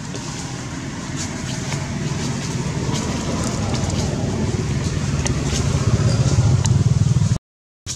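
Low engine rumble of a motor vehicle, growing steadily louder over several seconds, with faint scattered clicks above it; it cuts off abruptly near the end.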